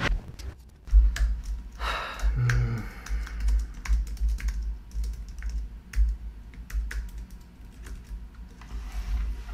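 Computer keyboard being typed on: irregular clicking of keys with dull low knocks on the desk.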